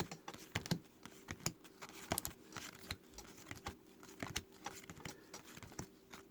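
Trading cards being flipped through and set down by hand: a run of light, irregular clicks and taps, several a second, over a faint steady hum.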